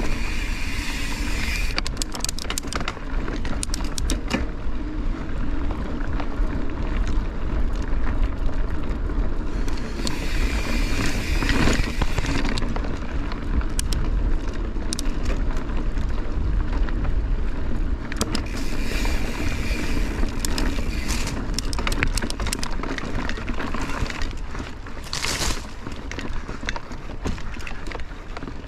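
Mountain bike rolling over a rocky, loose-stone trail: tyres rumbling on the stones, with frequent sharp clicks and rattles from the bike. Wind rumbles on the microphone.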